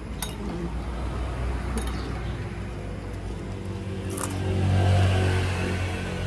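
A vehicle engine's low rumble, swelling to its loudest about five seconds in and then easing off, with a few light clicks.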